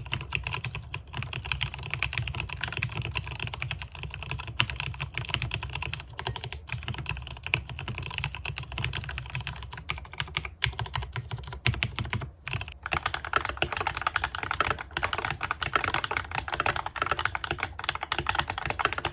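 Typing on a Keychron K8 mechanical keyboard fitted with Akko V3 Pro Cream Blue switches: a fast, steady run of keystroke clacks. About twelve seconds in it pauses briefly, then comes back louder.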